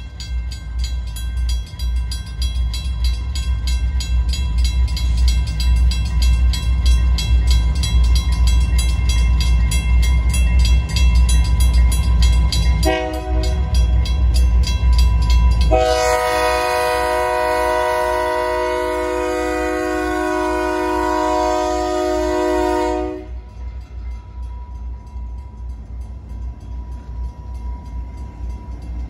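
A railroad crossing bell ringing rapidly over the deep rumble of approaching GP39-2 diesel freight locomotives. A short multi-note air horn blast sounds about 13 seconds in, then a long, loud horn chord runs for about seven seconds before the locomotives reach the crossing.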